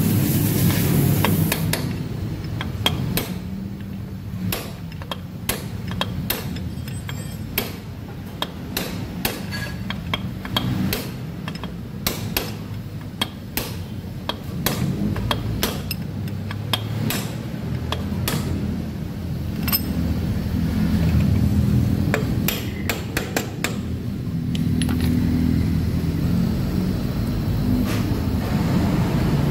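A hammer striking a steel drift rod held against the gear shaft in the open final-drive gear case of a Yamaha X-Ride scooter: many sharp metal taps at an uneven pace, stopping about five seconds before the end.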